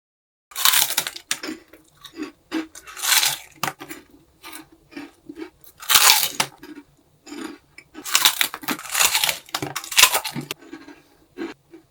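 Crunchy snack being bitten and chewed close to the microphone: several loud crunching bursts at irregular intervals, with softer chewing between them.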